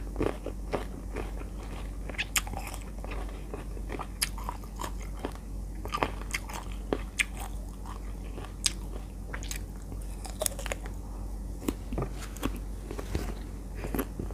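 Close-up chewing and biting of crunchy unripe green mango slices, with irregular crisp crunches.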